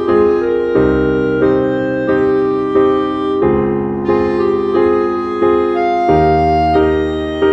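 Background piano music, a new chord struck roughly every three-quarters of a second in a steady rhythm.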